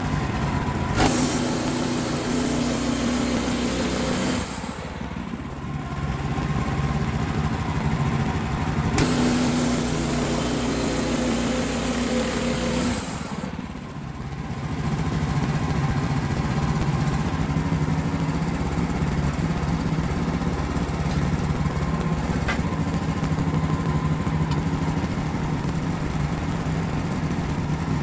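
Wood-Mizer LX55 sawmill's engine running steadily. Twice it is overlaid for a few seconds by a louder, harsher noise: about a second in, and again about nine seconds in.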